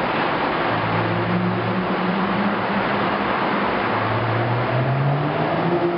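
Cabin sound of a 2011 BMW 335i coupe's turbocharged inline-six, fitted with an aftermarket downpipe and Vishnu exhaust, pulling at around 2,000 rpm over steady road noise. The engine drone rises in pitch past the middle as the revs climb.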